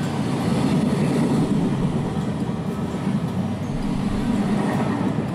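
Freight train of container wagons passing close by, with a steady running noise of wheels on rail.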